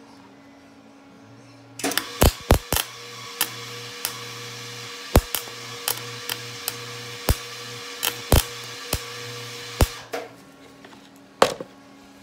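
Wire-feed (MIG) welder arc, welding a nut onto a broken exhaust stud: a steady hiss with a hum, broken by irregular sharp pops, starting about two seconds in and stopping about ten seconds in. It sputters rather than giving the nice crackling sound the welder expects, which he doesn't like.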